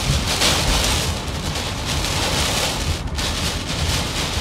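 Hurricane wind and heavy wind-driven rain: a dense hiss that swells and eases in gusts over a low churning rumble, dipping briefly about three seconds in.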